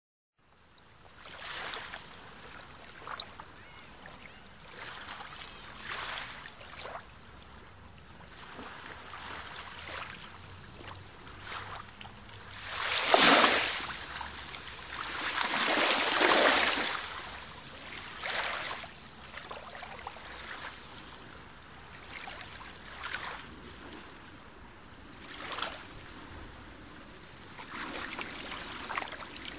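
Sea surf: a steady rush of waves that swells and falls back every few seconds, with the two biggest surges about halfway through.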